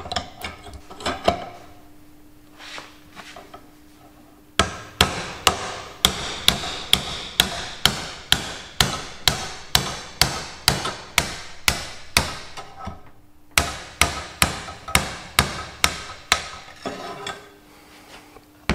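Hammer blows on steel, collapsing a worn tractor kingpin bush inward at its join inside its cast housing so that it can be driven out. A few light taps come first, then a steady run of sharp metallic strikes about three a second, a brief pause, and a second shorter run.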